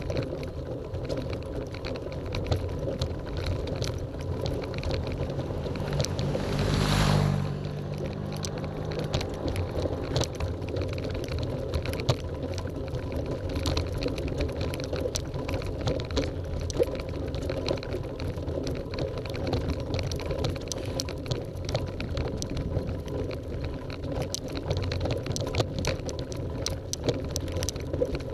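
Bicycle climbing slowly over rough cobblestones: a steady rattling rumble with frequent sharp knocks as the wheels hit the stones. About six seconds in, a louder whoosh swells and fades over a second or so.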